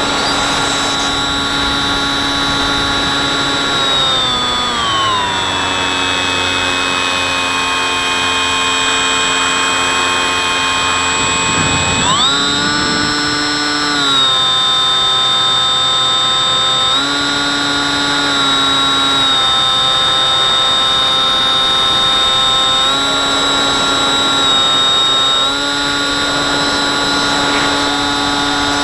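Electric motor and propeller of a Bix3 foam model plane, recorded from the plane itself, whining steadily. The pitch glides down about four seconds in as the throttle is eased back, jumps back up about twelve seconds in, and shifts slightly up and down a few more times.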